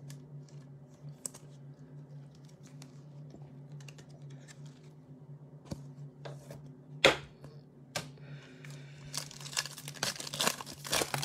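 Trading cards being handled and shuffled, with scattered light clicks of card on card and one sharp click about seven seconds in. Over the last two seconds a foil card pack is torn open and crinkled. A low steady hum runs underneath.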